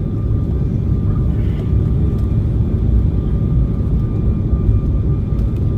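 Embraer E175 airliner in flight, with its GE CF34 turbofans: a steady low rumble of engine and airflow noise with a faint, even whine above it.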